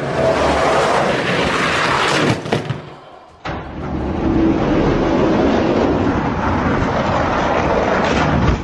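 Die-cast Hot Wheels monster trucks rolling fast down a long orange plastic track, a steady dense rolling noise of their wheels on the track. It fades out about three seconds in, then starts again suddenly and runs steadily.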